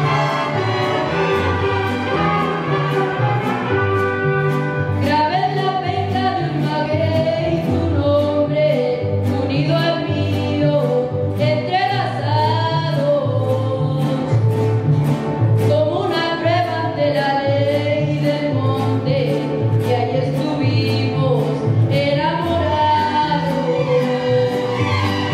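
Student mariachi band playing: violins and guitar over a steady bass line that alternates between two deep notes. A lead singer comes in about five seconds in.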